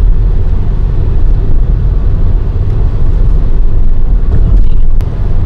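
Steady low rumble of a car's engine and road noise heard from inside the moving car's cabin.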